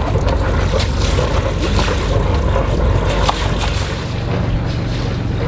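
Sailboat's inboard diesel engine running steadily as the boat motors slowly, with wind buffeting the microphone.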